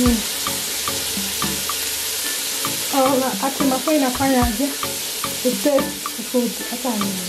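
Beef stew meat frying in an aluminium pot, a loud steady sizzling hiss. From about three seconds in, short falling pitched sounds come and go over it.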